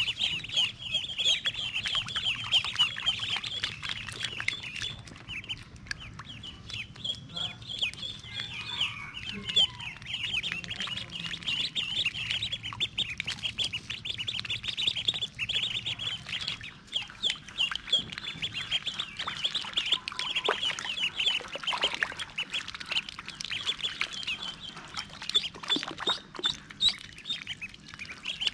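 A group of ducklings peeping continuously, a dense stream of short, high-pitched calls.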